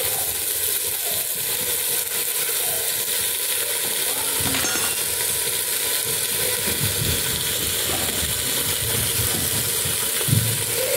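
Eggplant pieces sizzling as they fry in hot oil in an open aluminium pressure cooker, with a couple of dull knocks in the second half.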